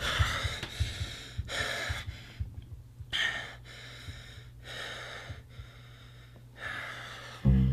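A man panting and gasping for breath after waking with a start: about eight hard breaths that slowly spread out. Plucked-string music begins near the end.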